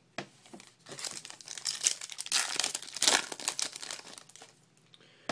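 A foil trading-card pack being torn open and its wrapper crinkled, a dense crackling that runs for about three and a half seconds and then dies away.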